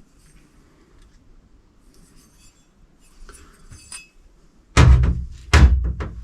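Light metallic clinks from the parts of an electric supercharger being handled. About three-quarters of the way in, a run of loud, sharp knocks begins, roughly two a second, each with a short ring, as the unit is struck or worked on.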